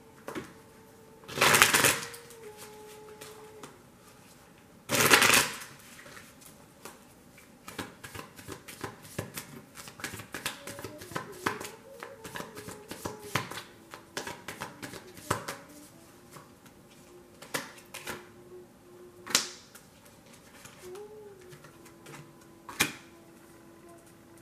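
A deck of tarot cards being shuffled. Two loud riffling bursts come in the first few seconds, then a long run of quick card flicks and snaps that thins out to a few single snaps near the end.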